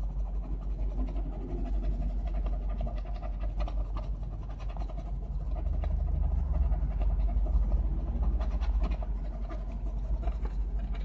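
A coin scraping the coating off a lottery scratch-off ticket in quick repeated strokes, over a steady low rumble.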